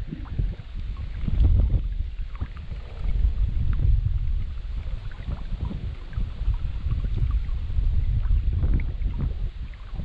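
Wind buffeting the microphone in a low, uneven rumble, with small splashes and trickles of creek water.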